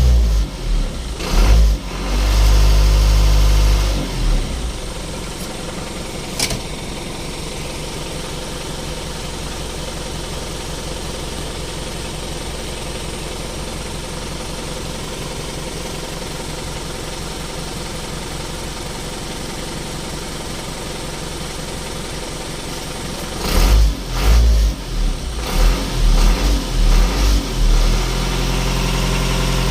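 Isuzu Elf truck's diesel engine idling steadily, revved in short bursts a few times near the start and again near the end, then held at a raised, steady speed in the last seconds.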